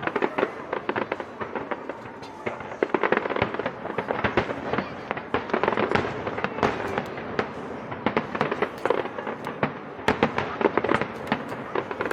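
Fireworks display going off in a dense barrage of sharp bangs and crackling that starts suddenly.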